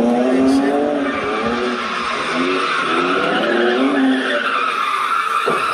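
A drift car's engine revving up and down as the car slides, with its tyres squealing through the slide.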